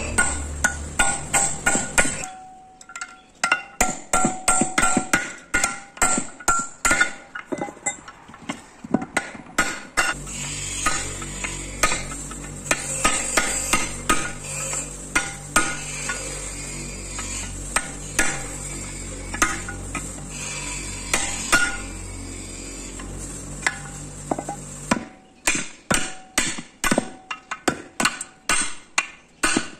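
Hand hammer striking a steel chisel held against a bus brake shoe, repeated sharp metallic blows in quick runs, cutting away the worn brake lining and its rivets.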